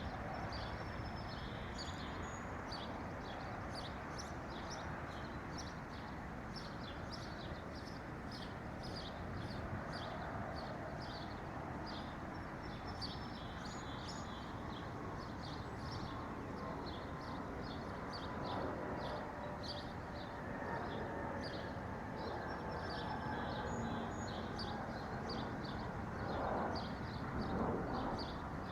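Small songbirds chirping in quick, high, repeated notes, several a second, over a steady low background noise that grows a little louder near the end.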